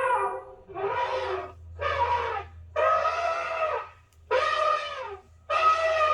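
Woolly mammoth sound effect: a string of trumpeting calls, about one a second, each rising and then falling in pitch, after a falling call trails off at the start.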